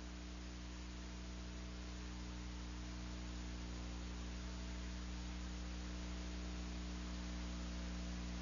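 Steady electrical mains hum with a layer of hiss on an open audio line between radio calls, slowly growing a little louder.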